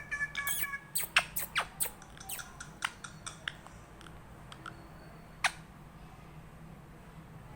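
Pet parrot making quick, short, high chirps and clicks, many in the first three seconds and then only a few, with one louder chirp about five and a half seconds in. A held whistled note fades out within the first second.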